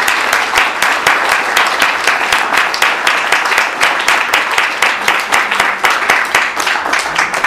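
Audience applauding, a dense patter of many hands clapping at an even level.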